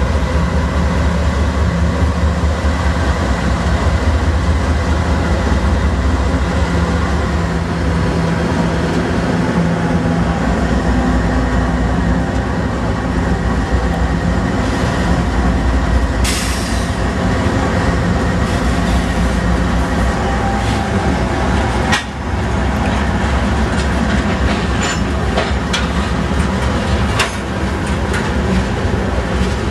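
Canadian National freight train passing close by. Its diesel locomotives run steadily, then the hopper cars roll past with clicking wheels over the rail joints in the later part.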